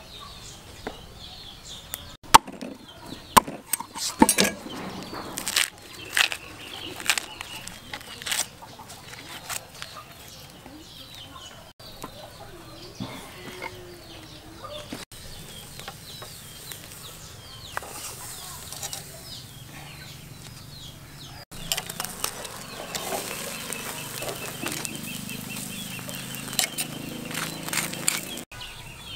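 Chickens clucking, with a run of sharp snaps and clicks in the first several seconds.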